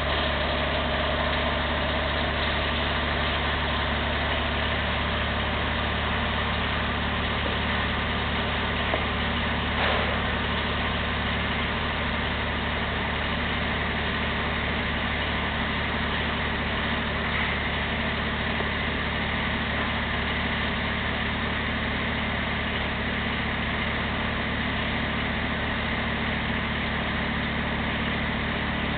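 An engine idling steadily with a low, even hum, with a brief click about ten seconds in.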